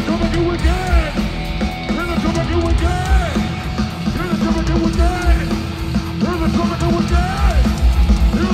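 Live rap-metal band playing loud: distorted electric guitars and heavy drums under shouted rap vocals.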